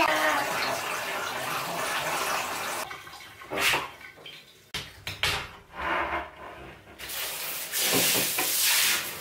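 Water running and splashing during a baby's hair rinse in a plastic bath seat: a few short pours from a cup in the middle, then a handheld shower head spraying steadily near the end.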